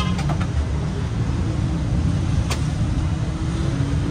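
Steady low rumble of road traffic, with a few light clicks near the start and one sharper click about two and a half seconds in.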